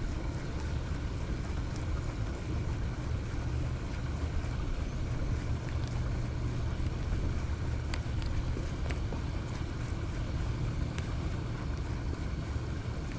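Wind buffeting the microphone outdoors: a steady, fluctuating low rumble with a few faint ticks.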